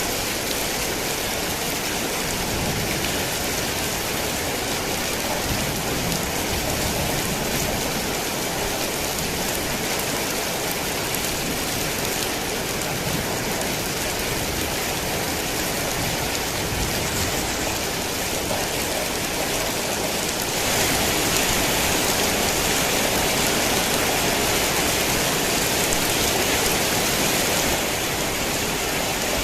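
Heavy rain falling steadily as a dense, even hiss. It grows a little louder for several seconds about two-thirds of the way through, then settles back.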